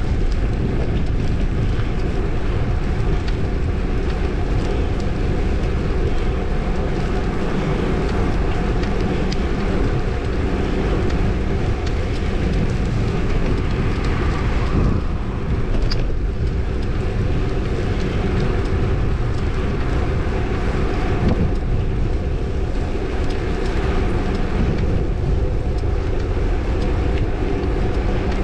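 Steady rumble of a moving vehicle, with a brief dip about fifteen seconds in and one sharp click just after.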